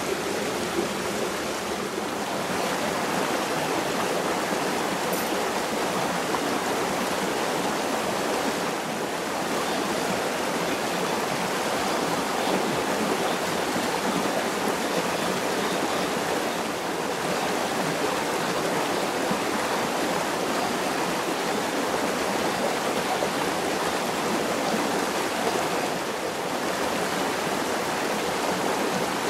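A shallow rocky stream running steadily, its water rushing and splashing over the stones.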